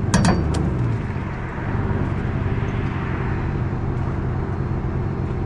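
Vehicle engine running steadily while it pulls on copper wire tied to its hitch. A few sharp cracks come in the first half second.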